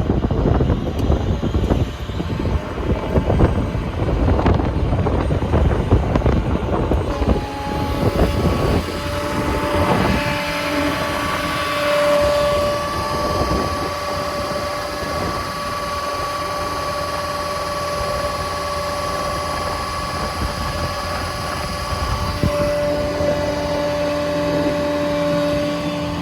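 Ford F550 service truck running with the PTO engaged, driving the hydraulic system and the Quincy air compressor. A rough low rumble at first, then from about seven seconds in a steady multi-tone whine sets in and holds over the engine.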